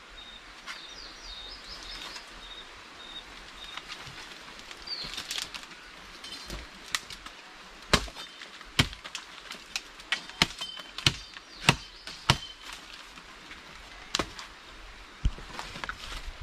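A machete chopping into a woody tree root: a series of sharp hacks about a second apart, starting about five seconds in. Short, high bird chirps repeat in the first few seconds.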